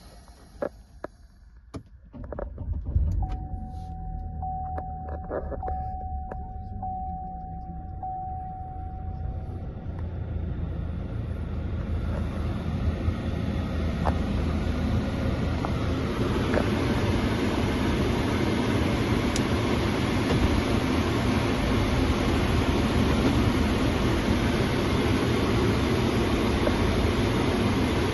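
2014 Cadillac ATS heard from inside: a few clicks, then the engine starting about two seconds in, with an electronic chime tone pulsing for several seconds. The car then pulls away, and engine and road noise build over several seconds before holding steady.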